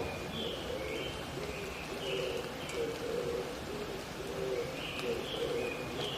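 Wild mountain dove cooing in a steady repeated series of low notes, with another small bird calling in short high notes over a soft background hiss of the wet forest.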